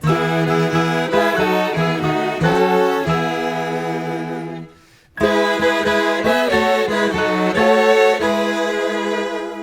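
Instrumental music: a melody of held notes on a wind or reed-type instrument over accompaniment, breaking off briefly about halfway through before going on.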